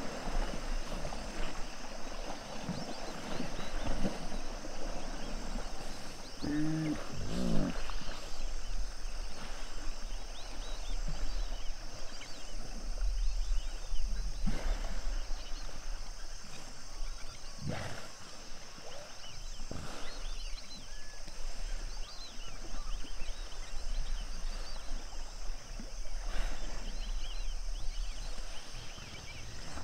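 Hippos of a pod calling: a pitched, wavering honking call about seven seconds in and another beginning near the end, with a few short sharp sounds between. Faint high chirps and a steady low rumble lie underneath.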